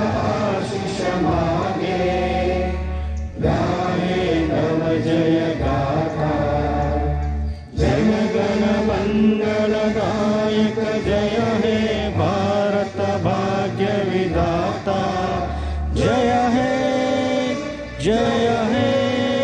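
Singing in long, wavering held notes over instrumental backing with a steady low bass, the song breaking off briefly a few times between phrases.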